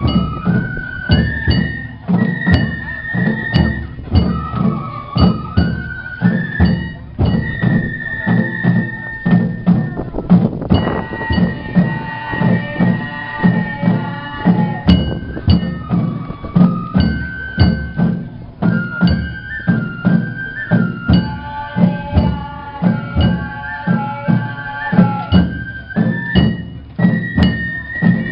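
Japanese festival float music (hayashi): a bamboo flute playing a melody over steady, repeated taiko drum beats.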